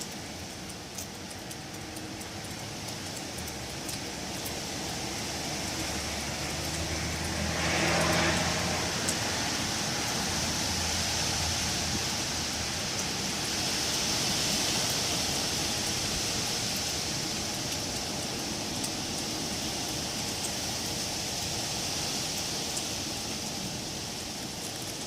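Wind blowing through trees, a continuous rushing hiss of leaves and branches that swells and eases in gusts, loudest about a third of the way in, with a low rumble under the strongest gust.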